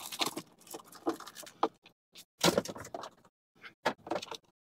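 A car glove box being emptied and handled: an irregular run of plastic knocks, clicks and rattles with short pauses, as items are pulled out and the glove box door is moved.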